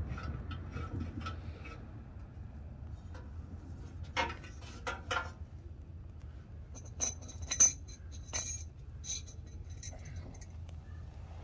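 A wrench working the old oxygen sensor back into the car's exhaust pipe: light regular clicks at first, then a few sharper knocks and bright metallic clinks in the middle.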